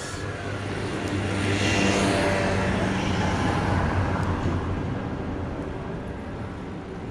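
Engine of a passing motor vehicle: a steady low hum that swells to its loudest about two seconds in and then slowly fades away.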